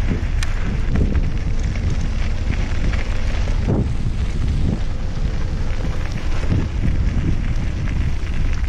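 Wind buffeting the microphone of a camera mounted on a moving recumbent trike, over a steady rumble and crackle of tyres rolling on a gravelly dirt trail.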